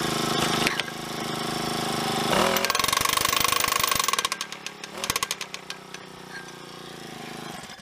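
Powered hammer driving a steel ground post: the motor runs, then from about two and a half seconds in it hammers rapidly for a second and a half, slowing to a few separate blows, and the motor runs on lower before cutting off at the end.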